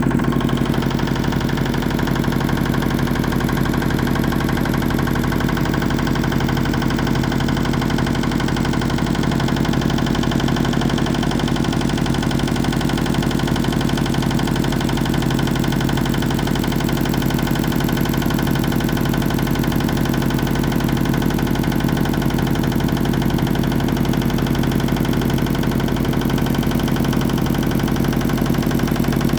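Motorboat engine running steadily at an even, unchanging speed.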